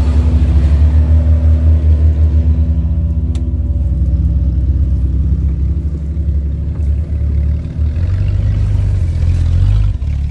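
Lifted off-road Jeep engine running at low revs, a steady deep rumble.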